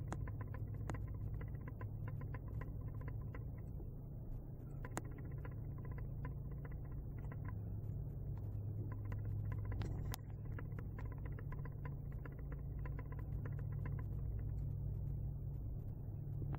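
Steady low hum with faint scattered clicks and crackle throughout.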